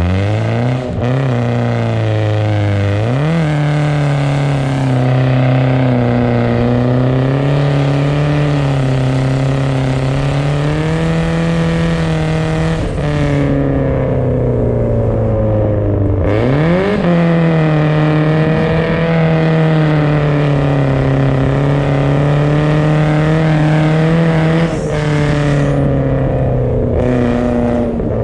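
BMW car engine pulling at high, wavering revs while sliding on ice, the revs dropping and then climbing sharply again a few times, near the start, about sixteen seconds in and at the end.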